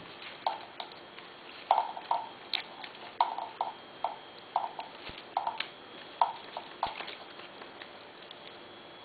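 Fresh tulip stems squeaking as they rub against each other while the bouquet is handled and tied: about a dozen short, irregular squeaks with a few small clicks, stopping after about seven seconds. The squeaking shows the tulips are crisp and fresh.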